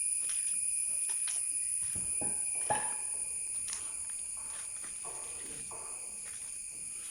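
Insects chirring steadily in several high, continuous tones, with a few faint scattered knocks like footsteps on the site.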